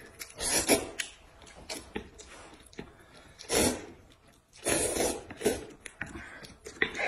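A person slurping noodles from a bowl of soup: several loud sucking slurps, with a few short clicks between them.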